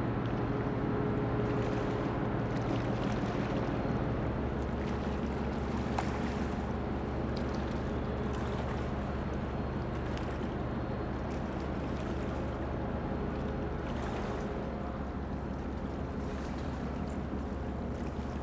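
Container ship's engine running with a steady low drone, several held low tones over a constant wash of noise, easing slightly near the end.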